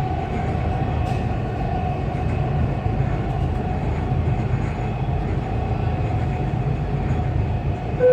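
Dubai Metro train running, heard from inside the carriage: a steady low rumble with a faint steady hum over it.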